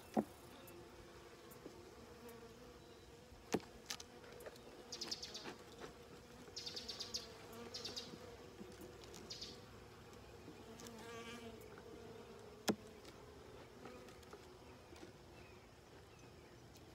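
Honeybees buzzing around an open hive in a steady hum. Two sharp knocks of the hive tool on the wooden box ring out about 3.5 s and 12.5 s in, and several short puffs from the bee smoker's bellows sound between about 5 and 9.5 s.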